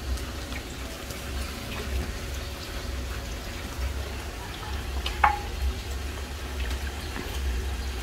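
Pool water lapping and trickling as a pool-cleaning robot is pulled along the pool floor by its cable, over a steady low rumble. There is a single sharp click about five seconds in.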